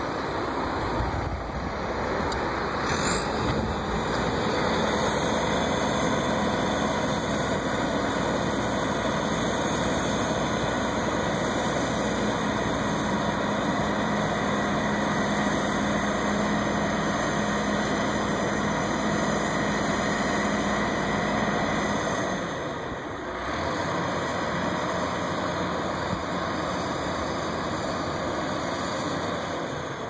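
Truck-mounted crane's engine running steadily. Its hum strengthens about 12 seconds in, then drops off about 23 seconds in and settles to a quieter run.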